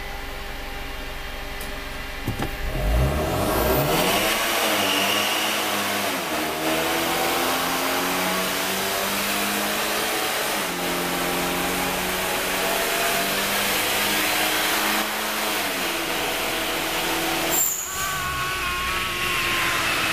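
Hyundai car engine revving hard under load on a chassis dyno during a power pull, its pitch climbing steadily, dipping once about ten seconds in and climbing again. It cuts off with a brief sharp burst near the end.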